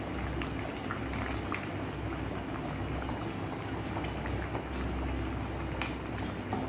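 Drumstick-leaf dal kulambu simmering in a clay pot: a steady bubbling hiss with faint scattered clicks, and a ladle dipping into the pot.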